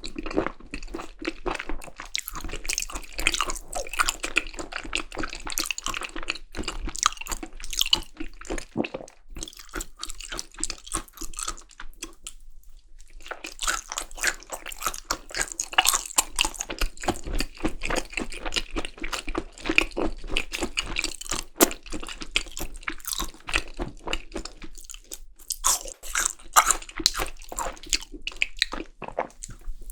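Close-miked chewing of seasoned raw beef tartare: wet smacking and crunching bites, with a short pause about twelve seconds in.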